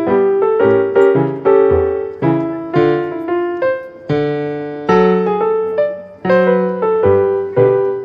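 Background piano music: single notes and chords struck about twice a second, each ringing and fading before the next.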